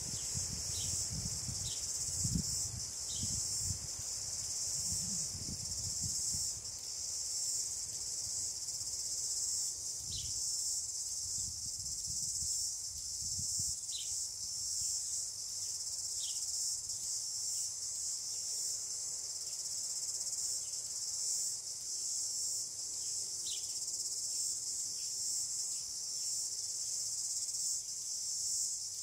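A steady, high-pitched chorus of insects chirping, with a few short faint chirps above it. Bursts of low-pitched noise come in the first few seconds and again from about ten to fourteen seconds in.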